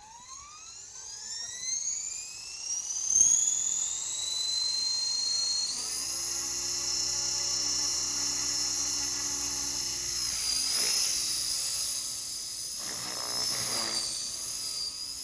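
Align T-Rex 600 radio-controlled helicopter spooling up: a high whine from the motor and rotor rises in pitch over the first five or six seconds, then holds steady as the rotor reaches flying speed, and the helicopter lifts off near the end.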